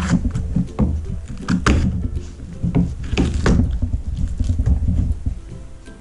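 Kitchen knife cutting a red bell pepper into small pieces on a wooden cutting board: irregular cuts and knocks of the blade against the board, several in quick succession.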